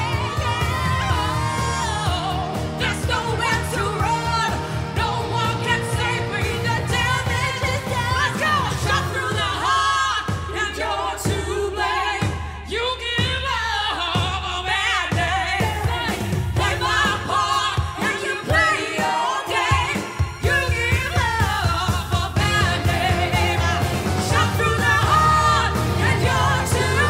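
Women singing a pop song live into microphones over a full backing track. For about ten seconds in the middle the low backing drops to short, spaced hits under the voices, then the full beat comes back.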